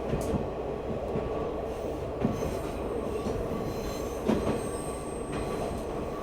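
Diesel train running along the track: a steady low rumble with a few short knocks, and a faint high wheel squeal in the second half.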